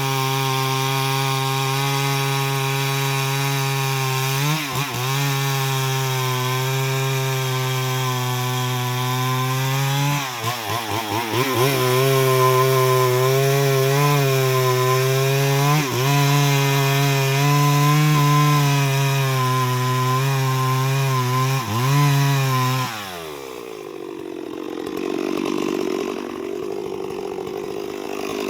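Chainsaw running at high revs while cutting wood, its pitch dipping briefly several times as the chain bogs in the cut. About 23 seconds in the revs fall away and the saw drops to a quieter, lower sound.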